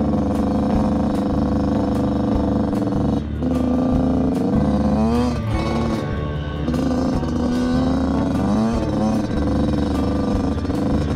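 Dirt bike engine under way on a trail, its pitch climbing and dropping back several times as the throttle is opened and eased off.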